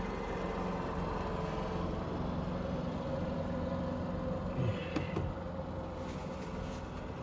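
Steady hum of an idling vehicle engine, with a few faint clicks about two-thirds of the way through.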